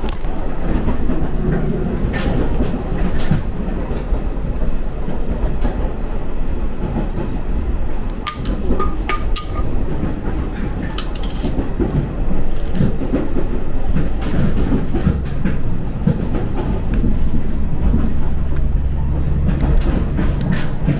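Cabin noise of the Umisachi Yamasachi diesel tourist railcar running along the line: a steady low rumble with wheels clicking and rattling over the track. A few sharp clicks come about eight to nine seconds in.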